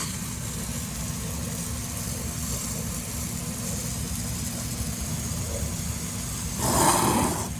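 Steady low running hum of the bounce house's electric inflation blower. Near the end a brief, louder rushing noise rises over it.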